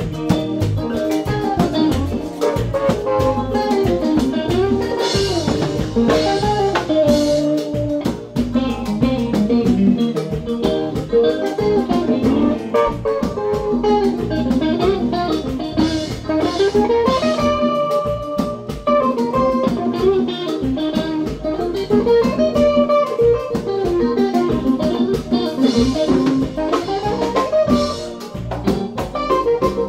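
Live band playing an instrumental passage: an electric guitar plays melodic lines over bass guitar and drum kit.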